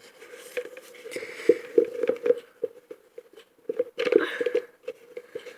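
Slime mixture being stirred in a small container: irregular soft taps and sticky, wet clicks.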